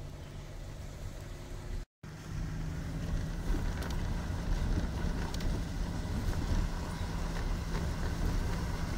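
Car cabin engine and road hum; after a sudden cut about two seconds in, a louder low engine rumble with wind buffeting the microphone.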